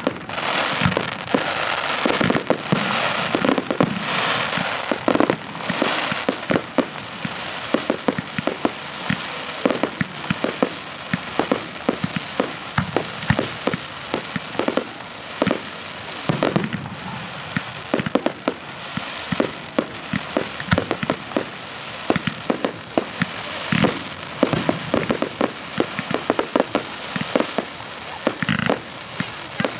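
Fireworks display: a dense, continuous run of bangs from bursting shells, often several a second, over a steady crackling hiss.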